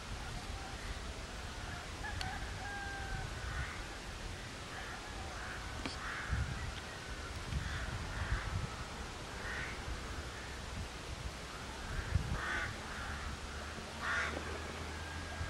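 Crows cawing repeatedly, short harsh calls with a few louder ones near the end, over other birds calling faintly and a low, uneven rumble.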